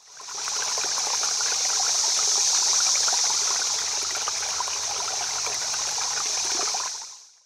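Running water of a small stream, a steady babbling rush with fine splashes. It fades in over the first half second and fades out near the end.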